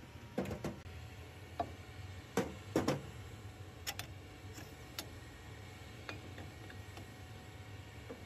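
Scattered metallic clicks and knocks as the steel boring bar of a portable line-boring machine is handled in the bore of an excavator boom link and its bearing mount is fitted on, the loudest a pair of knocks a little under 3 s in. A faint steady low hum lies underneath.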